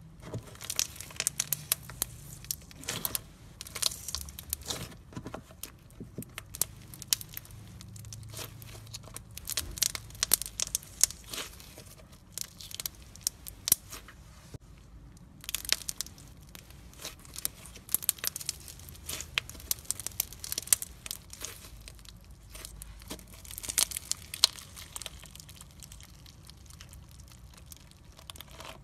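Clear slime packed with cubes of coloured sponge being squeezed and kneaded by hand, giving bursts of sticky crackling and popping clicks that come and go with each squeeze and fade near the end.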